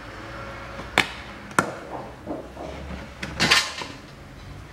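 Two sharp clicks about half a second apart, then a few lighter knocks and a short scraping rustle about three and a half seconds in: a plastic oil canister and a plastic hose being handled.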